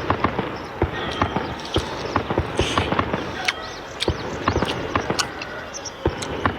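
Close-miked eating sounds of a person eating a bowl of rice noodles: wet chewing and lip smacks with many small irregular clicks, and a short slurp about two and a half seconds in.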